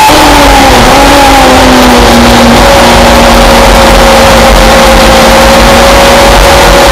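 Simca Rallye 3 race car's four-cylinder engine heard loud from inside the cockpit: the revs fall over the first two to three seconds as the driver lifts off for a corner, then hold steady at lower revs.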